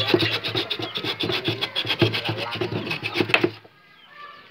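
Hand saw cutting a wooden plank with quick back-and-forth rasping strokes, stopping suddenly about three and a half seconds in.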